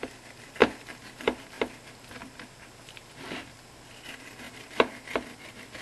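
Fillet knife knocking and scraping on a cutting board as it saws the skin off a pike fillet: about five sharp knocks, the loudest about half a second in and near the end, with a short scraping rasp in between.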